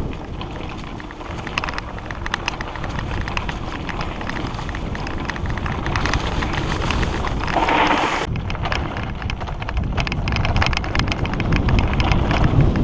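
Hardtail mountain bike riding over dry dirt singletrack: a steady rush of tyre noise over dirt and leaf litter, with constant rattling clicks and wind on the microphone. There is a louder rush about halfway through.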